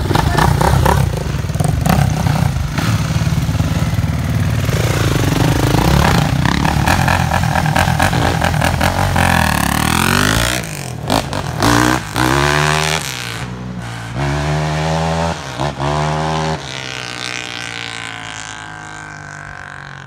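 Kawasaki dirt bike engine revving as the bike pulls away, loud at first, then a run of several rising revs in quick succession before the sound fades steadily into the distance as it rides off.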